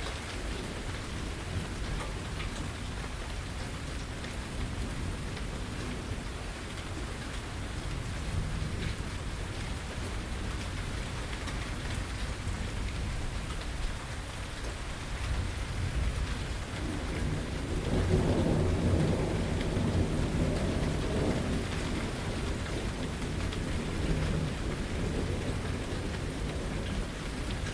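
Steady rain falling during a thunderstorm. About two-thirds of the way in, a low rolling rumble of thunder swells up, then fades over several seconds.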